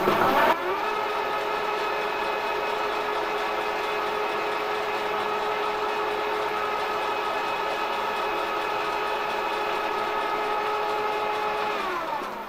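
Milling machine spindle spinning up over the first half second, running at a steady whine while its end mill cuts into a graphite-filled PTFE piston ring, then winding down, falling in pitch, about a second before the end.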